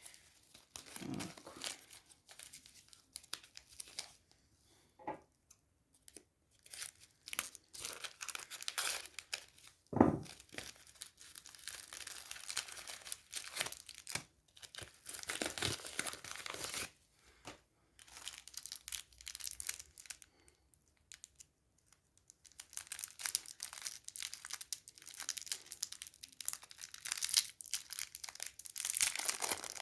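Small mailing packets being torn open, their packaging rustling and crinkling in uneven bursts, with one sharp knock about ten seconds in.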